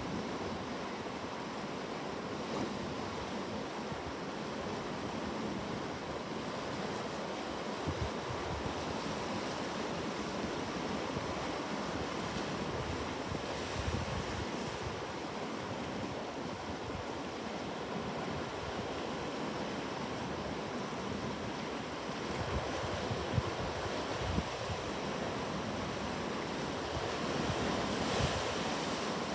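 Ocean surf washing steadily onto a shore, with wind buffeting the microphone in short low rumbles now and then.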